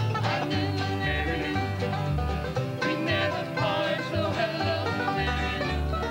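Bluegrass band playing live: acoustic guitars strumming and an upright bass plucking a bass line, with a man singing lead.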